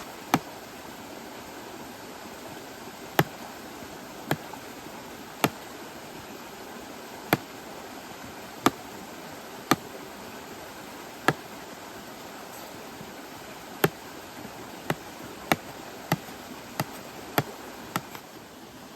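Steady rush of running water, with about fifteen sharp knocks at uneven intervals over it, coming closer together near the end.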